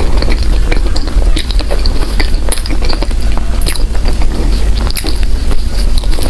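Close-miked chewing of soft bread: a dense run of small irregular wet clicks and crackles from the mouth over a steady low rumble.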